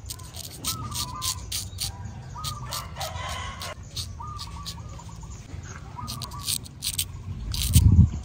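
Straight razor scraping stubble on the neck and chin in many short crisp strokes, with chickens calling and a rooster crowing in the background. A loud low thump near the end.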